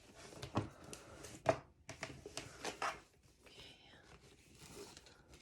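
Rustling and crinkling of packaging being handled as a bag is unwrapped, with irregular light clicks and taps; the sharpest crackle comes about a second and a half in.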